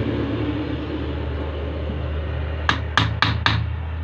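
Four sharp, quick clicks, about a quarter second apart, as a Maruti alternator's rear housing is handled and worked on, over a steady low hum.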